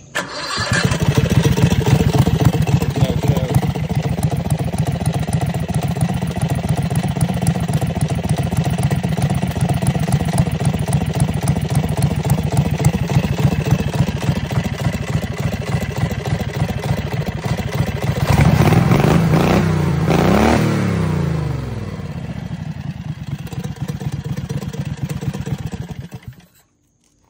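Predator 670 V-twin engine on a surface-drive mud motor running through its homemade welded exhaust, with its governor held open and an aftermarket carburetor. It runs steadily, is revved up once and back down about two-thirds of the way through, then the sound stops suddenly near the end.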